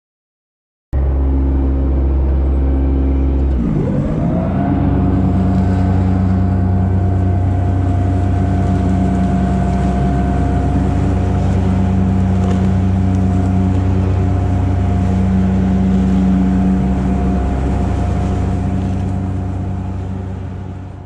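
An engine running, revving up about three seconds in and then holding steady at a higher speed.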